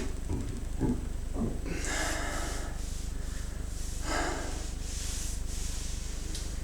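A person gulping air, with a few short low gulps in the first second or so, then two noisy breaths about two and four seconds in, over a steady low hum.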